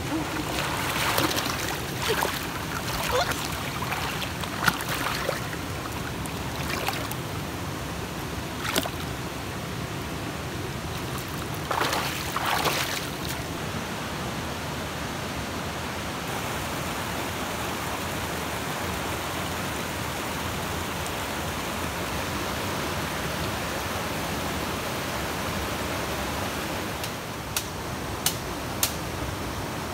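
Stream water running steadily, with a series of splashes in roughly the first dozen seconds as a fish is grabbed by hand in a shallow pool. Three sharp clicks near the end.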